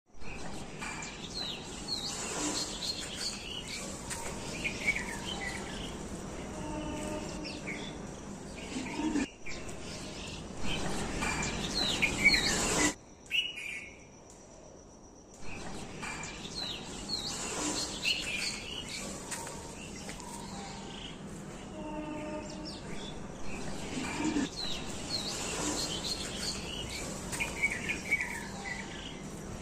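Small birds chirping and twittering over a steady insect hum. The sound drops almost to silence for about two seconds about 13 seconds in, and then the same stretch of birdsong seems to play again, like a looped nature recording.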